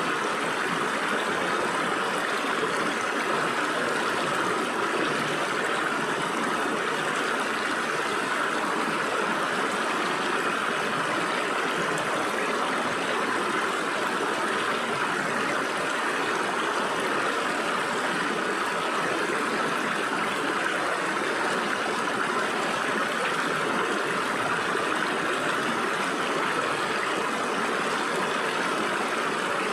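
Small stream flowing and splashing through gaps between rocks, a steady rushing babble.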